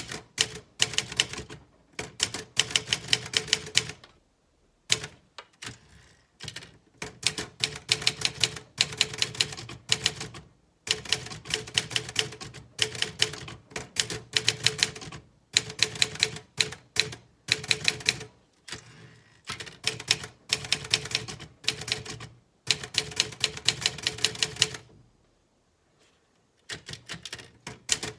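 Olivetti Studio 46 manual typewriter being typed on: quick runs of sharp key strikes, each run lasting a second or two, broken by short pauses.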